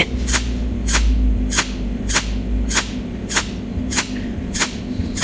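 Cold welding machine firing pulse after pulse through its tungsten needle onto an aluminium plate seam with filler wire: a short, sharp snap about every 0.6 seconds, evenly spaced, over a steady low hum.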